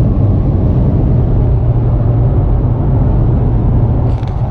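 Road and engine noise inside a pickup truck's cab while driving: a steady, mostly low-pitched rumble.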